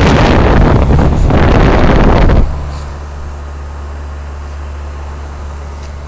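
Discharge air from a running York heat pump's condenser fan blowing hard across the microphone, a loud rush for about two and a half seconds that cuts off suddenly. Behind it, the running outdoor unit's steady low hum.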